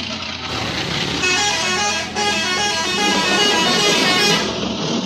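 Telolet multi-tone musical horn playing quick runs of short, stepped notes, with a brief break near the middle, over a steady low hum. The notes start about a second in and stop shortly before the end.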